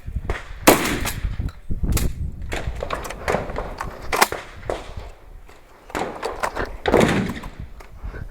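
Single pistol shots from a Kimber Eclipse 1911, fired one at a time with pauses of a second or more between them. The loudest shots come about a second in, near the middle and about a second before the end, each with a short echo.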